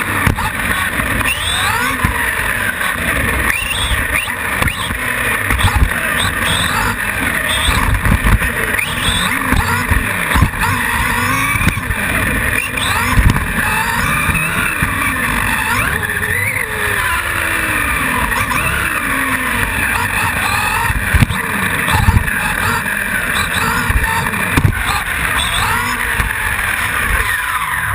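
Radio-controlled off-road buggy's motor and drivetrain whining from on board, the pitch gliding up and down with the throttle through a lap. Knocks and rattles come through the chassis, with a few sharp loud bangs as it lands jumps and hits the track.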